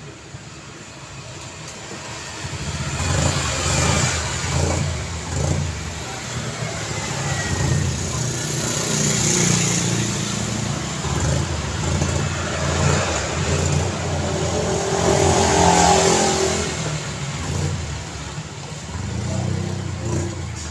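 Busy road traffic with cars and motorbikes passing close and accelerating, in a steady engine and tyre rumble. Louder swells come as vehicles go by, the strongest about three-quarters of the way through.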